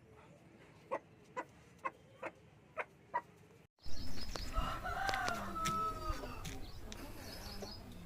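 Chickens: a run of short, quiet clicks about twice a second, then after a sudden cut a louder stretch in which a rooster crows once.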